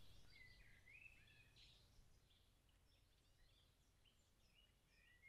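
Faint chirping of house sparrows: a quick run of short chirps in the first two seconds, then scattered single chirps.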